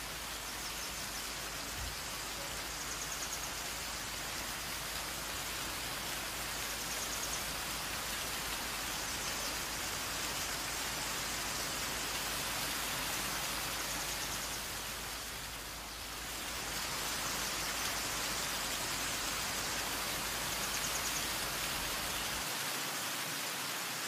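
Umbrella waterfall's water showering as drops from an overhanging rock face and spattering onto wet rocks below, a steady rain-like hiss that dips briefly about two-thirds of the way through.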